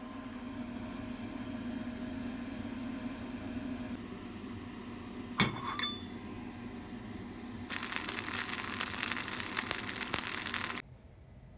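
Cabbage pancake batter frying in hot oil in a pan: a loud, even sizzle for about three seconds that cuts off abruptly near the end. Before it, a low steady hum and a single sharp clink about five seconds in.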